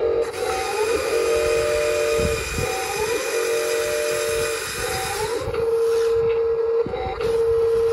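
Electric lift motor and gearing of a HUINA 1583 RC front loader whining as the arms raise a bucket loaded with an 8 lb dumbbell. The whine stops about five and a half seconds in, and a steady hum carries on.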